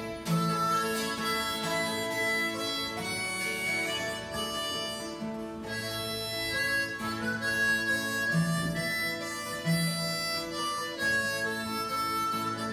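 Harmonica playing a melody over acoustic guitar accompaniment.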